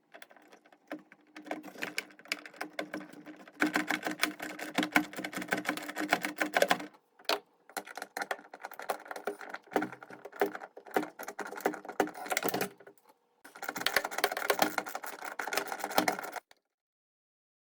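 Ratchet wrench clicking rapidly as the bolts holding a drum washing machine's suspension dampers are undone. It comes in runs, with short pauses about seven and thirteen seconds in, and stops suddenly near the end.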